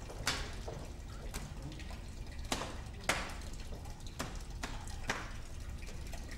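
Water dripping: single sharp drops falling at uneven intervals, roughly one to two a second, over a low steady hum.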